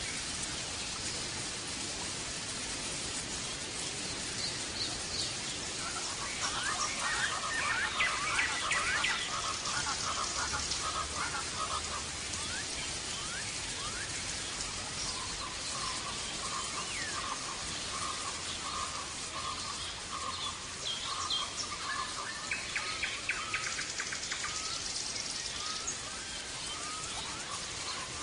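European goldfinch of the major type singing: bursts of rapid twittering notes, runs of quick repeated notes and buzzy trills, over a steady hiss.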